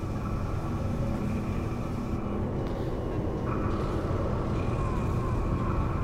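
A furnace running: a steady low rumble with a faint high hum over it.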